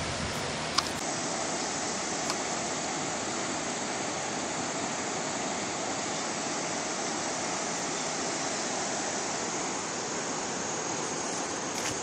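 Floodwater rushing steadily as a stream over its banks runs fast through trees and across a road.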